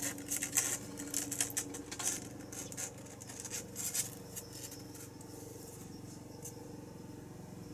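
Light scratching and scuffling clicks of kittens' claws and paws on cardboard and a fleece blanket as a kitten clambers over its littermates, busiest in the first four seconds and then dying away.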